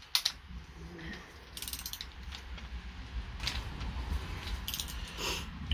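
Torque wrench ratcheting on the intake manifold bolts of a 350 marine V8: a couple of sharp clicks at the start, then several short bursts of ratcheting.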